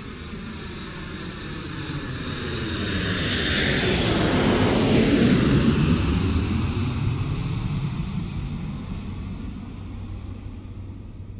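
Jet aircraft passing overhead: the engine noise swells to a peak about five seconds in and then fades away, its whine falling in pitch as it goes by.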